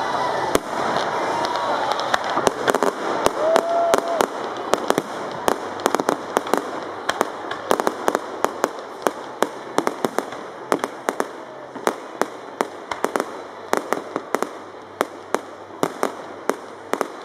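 Aerial fireworks going off overhead: a fast, irregular string of sharp bangs, several a second, loudest in the first few seconds.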